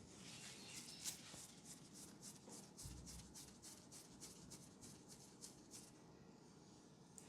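Hands rubbing in quick, faint strokes during a massage, about three or four a second, dying away near the end.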